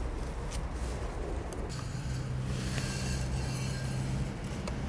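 A motor hums steadily in the background, swelling through the middle seconds and easing near the end, with a few light clicks and taps from hands working tent pegs through a plastic termite bait station.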